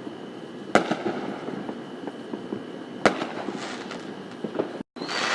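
Fireworks going off: two sharp bangs, one under a second in and one about three seconds in, with scattered small crackles between. A burst of hissing comes near the end.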